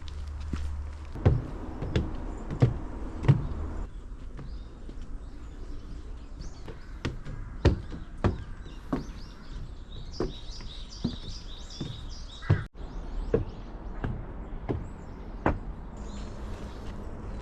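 Footsteps of a person walking on a path, about a step and a half per second, with birds chirping briefly about ten seconds in.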